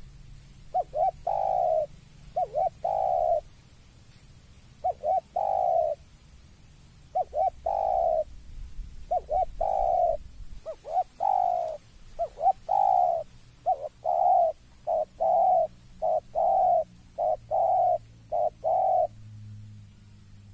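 Spotted dove cooing: about a dozen phrases, each a couple of quick notes followed by one longer coo, coming closer together in the second half. It is the call given on seeing a rival.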